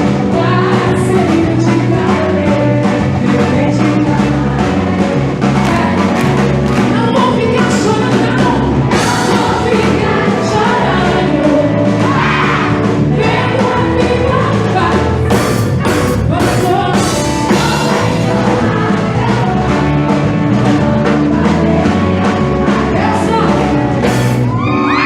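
Music with singing and a steady drum beat, in a rock or gospel style.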